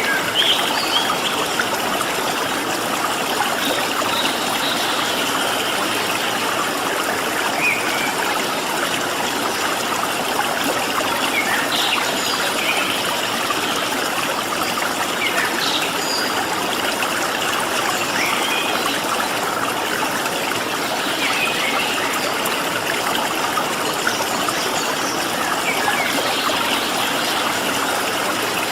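Steady rush of flowing stream water, with scattered short, high bird chirps over it now and then.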